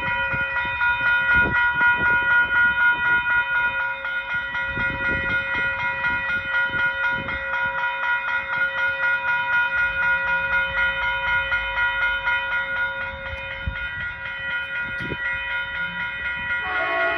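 Amtrak Blue Water passenger train moving on the track, with low knocks and rumble from the wheels over the rails, heaviest in the first half. A steady set of high ringing tones runs over it throughout.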